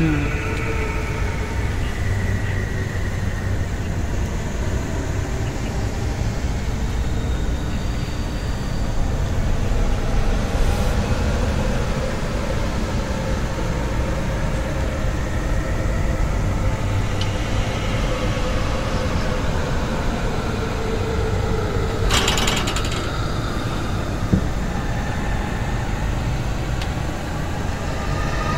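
A steady, dense rumbling and rattling drone from a horror film's sound effects, with one short crackling burst about 22 seconds in.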